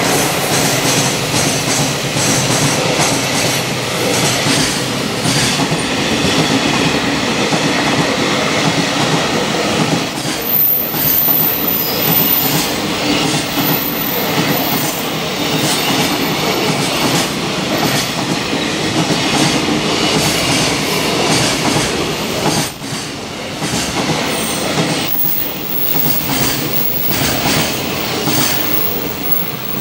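Container wagons of a freight train running past at speed, their wheels clattering over the rail joints in a fast, continuous run of clicks.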